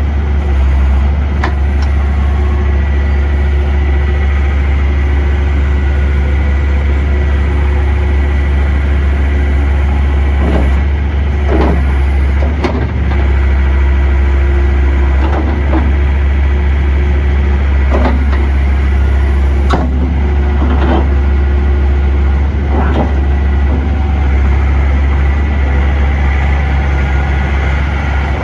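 John Deere 325 skid steer loader's 70 hp John Deere diesel engine idling steadily, with a few short knocks scattered through.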